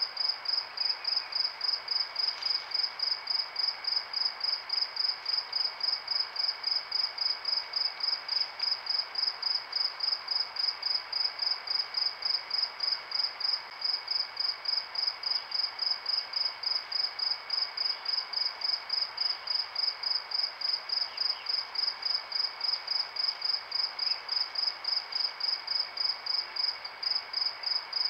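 Cricket chirping at a steady, even rate of about three high chirps a second, over a faint steady hiss.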